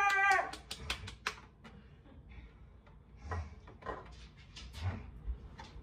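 Scattered light clicks and knocks of kitchen containers and utensils being handled on a counter, with a few soft low thumps. A voice's drawn-out call trails off at the very start.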